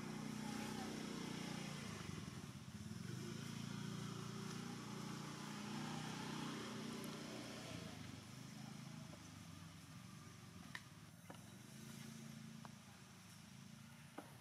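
An engine running steadily, loudest in the first half and fading over the second half, with a few faint clicks near the end.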